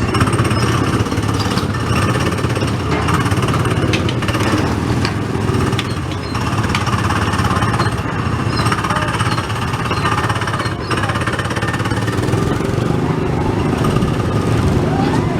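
Small engines of several go-kart-style ride cars running together in a steady, loud buzz.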